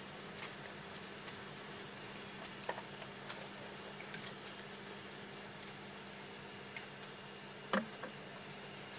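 Faint, scattered small clicks and taps, from handling small parts and tools at a repair bench, over a steady low electrical hum, with one sharper click about three-quarters of the way in.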